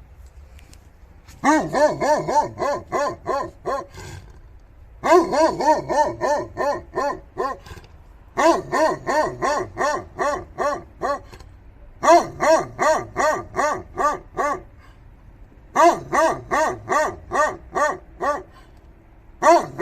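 An old Polish Tatra Sheepdog barking in rapid runs of about three barks a second, each run lasting a few seconds, with short pauses between runs.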